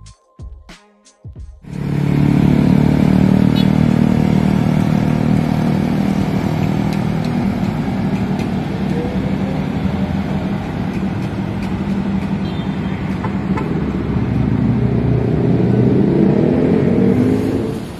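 Short plucked background music, then loud city street traffic picked up by a phone's microphone: cars and motorcycles running past, with a couple of engines rising in pitch as they speed up.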